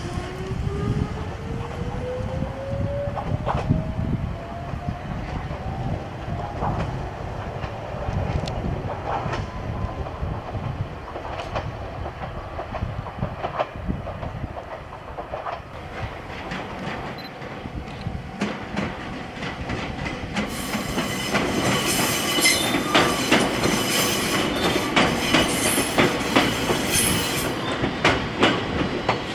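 Ichibata Electric Railway 3000 series electric train running, its traction motors whining in a pitch that rises steadily over the first six seconds as it accelerates. In the last third, the wheels clack over rail joints in quick repeated knocks, with a high metallic squeal over them.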